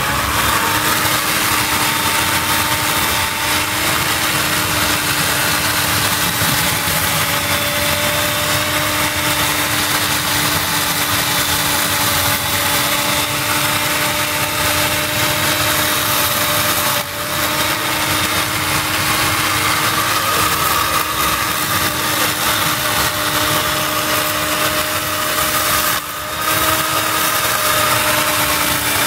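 Keyang corded electric chainsaw running steadily as it cuts through the body of a Mekong giant catfish, with a constant hum. The sound dips briefly twice, about two-thirds of the way through and again near the end.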